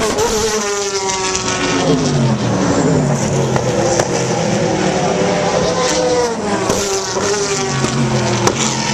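Racing cars' engines passing at speed, one engine's note falling steeply over the first few seconds, then several engines overlapping at shifting pitches.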